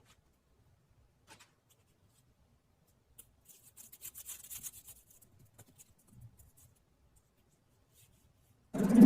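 Faint, brief scratchy rubbing sounds about halfway through, then loud music starts suddenly near the end.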